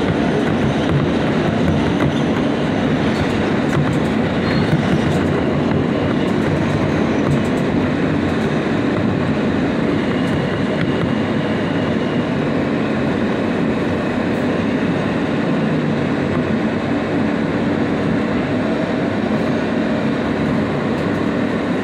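New York City subway G train rumbling along the track, heard from inside the car, with steady wheel and running noise as it slows to a stop at a station.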